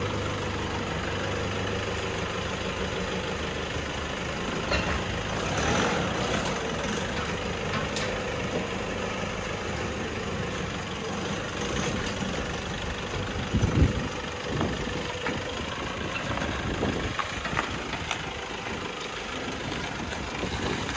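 A vehicle engine running steadily, with a couple of louder thumps about two-thirds of the way through.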